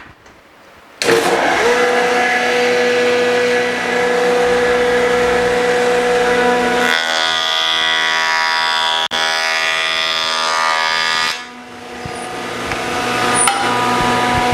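Jointer switched on about a second in and running with a steady hum. From about seven seconds in a board is fed across the spinning cutterhead, and the sound turns harsher and brighter as the knives trim the high spots. The cut ends a few seconds later and the machine runs on.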